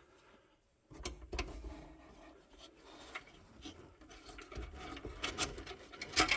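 Plastic fog lamp housing scraping, rubbing and clicking as it is worked loose and pulled out of the bumper opening, with a sharp click near the end.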